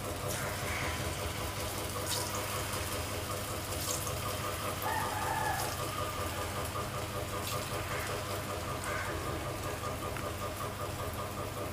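Chhana (fresh cheese) balls sizzling and crackling in hot oil in a non-stick kadai, over a steady low hum. A brief higher-pitched call-like sound comes about five seconds in.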